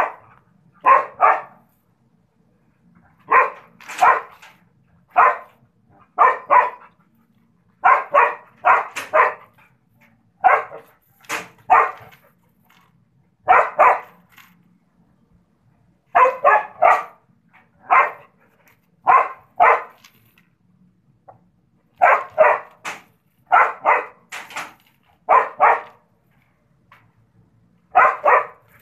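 A dog barking repeatedly: short barks, often two or three in quick succession, with pauses of a second or two between groups.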